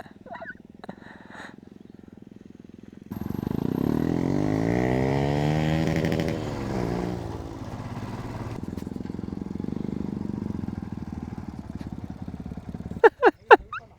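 Off-road motorcycle engine revving hard from about three seconds in, its pitch climbing and then dropping, then running at steadier, lower revs until near the end.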